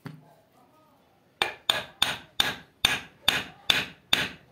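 Hammer blows on a fan's bearing seat: one knock at the start, then from about a second and a half in a steady run of about eight sharp blows, a little over two a second. They drive a new bearing, shimmed with a wedged piece of blade, fully tight in its seat.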